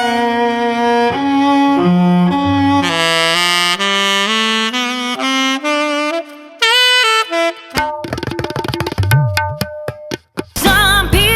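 Instrument demo recordings through a Warm Audio WA-19 dynamic microphone. A saxophone plays a slow melody of held notes, then short clipped notes and choppy percussive hits follow. A singing voice with vibrato comes in near the end.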